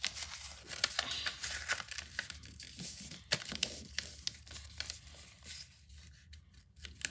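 A sheet of paper rustling and crinkling as it is folded and creased by hand, with irregular sharp crackles as the folds are pressed; it goes quieter for about a second near the end.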